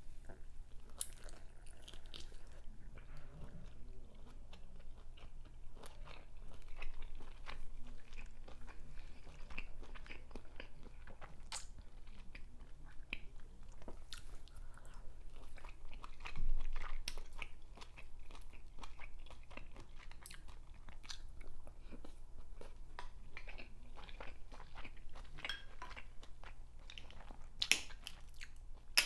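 Close-up chewing of large mouthfuls of seafood-boil lobster tail, with many wet mouth clicks and smacks. A louder bite or crunch comes about sixteen seconds in and again near the end.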